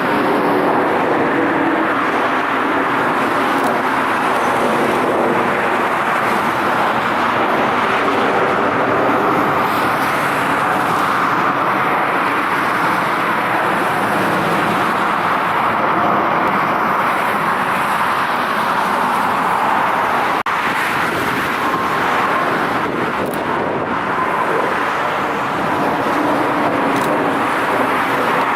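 Steady engine noise of a jet airliner, an even roar with a faint whine through it.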